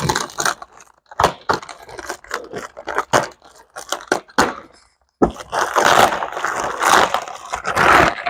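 Packaging wrap and tape being torn and crumpled off new exhaust headers: irregular crinkles and rips, then a denser, louder stretch of crinkling in the last three seconds.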